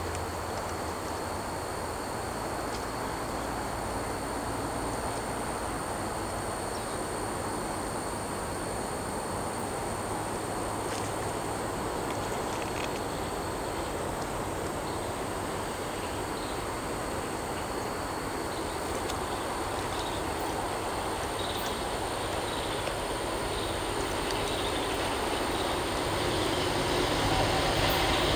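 A CSX freight train running on the line, a steady rumble that grows slowly louder toward the end as it approaches.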